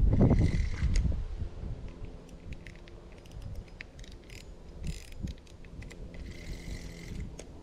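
Budget spinning reel clicking and whirring while a hooked common carp is played: the handle is wound in, with many small clicks, and two short buzzes, about half a second in and again near the end, as line is given. A low rumble is loudest in the first second.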